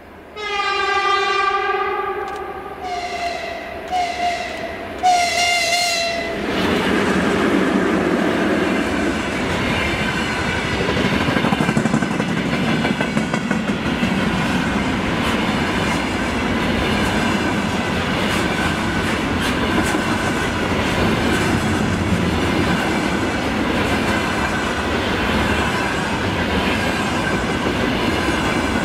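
A 2ES6 'Sinara' electric locomotive sounds its horn: one long blast, then a higher note and a few short blasts over the first six seconds. Its container freight train then passes close by, with the wheels rumbling and clicking steadily over the rail joints.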